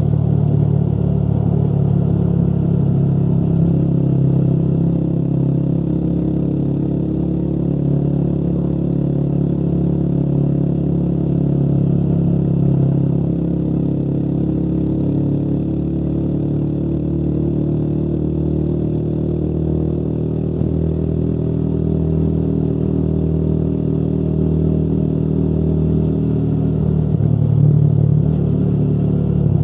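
Motorcycle engine running under way, its pitch slowly rising and falling as the throttle changes, with a short rise near the end.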